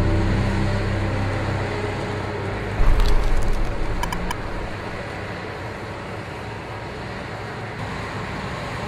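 Steady engine and machinery noise of a construction site, with a low thud and a few sharp clicks about three to four seconds in.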